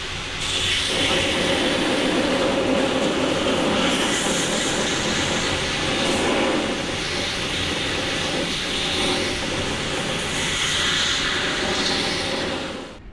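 Belt grinder running with a steel knife blade held against the abrasive belt, grinding in a steady pass that shifts in tone as the blade moves. The grinding cuts off suddenly near the end.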